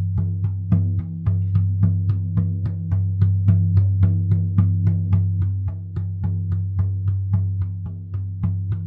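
Drum beaten in a steady, even rhythm of about four strokes a second for a journey meditation, each stroke over a deep, sustained low ring.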